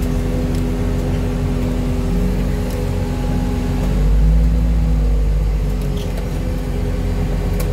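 Loader engine running steadily, heard from the operator's cab. About four seconds in it works harder and rises in pitch, then settles back.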